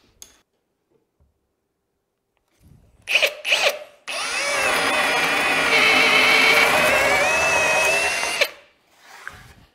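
Cordless drill boring through plywood with a 44 mm Milwaukee self-feed bit. There are a couple of short bursts about three seconds in, then about four seconds of steady drilling with a whining motor, which stops abruptly.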